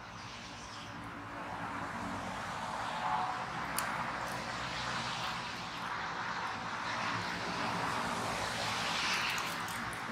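Steady outdoor rushing noise with a low hum underneath, swelling around three seconds in and again near the end, with a faint sharp click about four seconds in.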